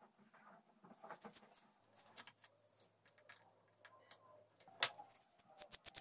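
Small blade scraping and cutting bamboo by hand: a run of faint, irregular scrapes and clicks, with one louder sharp click about five seconds in.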